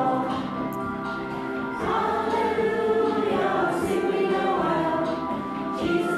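Choir singing, several voices holding long notes that move from one to the next without a break.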